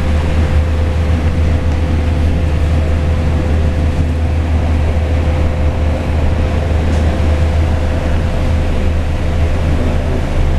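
Cabin noise of an electric bus on the move: a steady low rumble from the road and running gear, with one steady mid-pitched hum over it.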